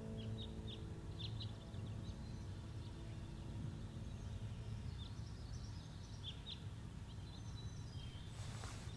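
Faint birds chirping now and then: short high chirps over a low steady background rumble of quiet room ambience.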